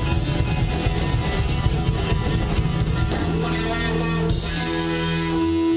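Live rock band, electric guitars, bass and drum kit, playing with busy drumming, then holding a final chord with a cymbal crash about four seconds in, the chord left ringing out as the song ends.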